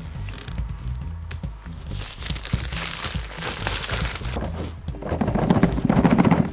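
Plastic shrink-wrap crinkling as it is pulled off a cardboard game box, then, from about five seconds in, a louder rubbing of cardboard as the box lid is worked off its base.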